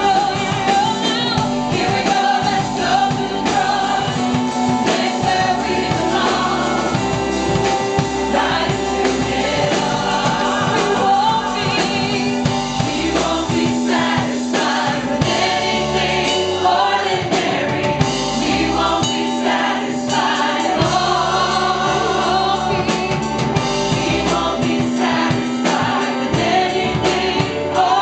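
Music with a choir singing, in a gospel or Christian worship style.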